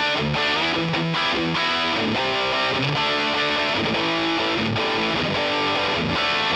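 Background music: a guitar-led track playing at a steady level.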